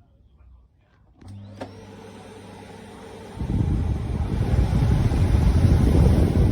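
Vacuum cleaner switched on: a click, then the motor's whine rising and settling into a steady high tone over a low hum. About three seconds in, a much louder rough rumbling noise comes in and stays.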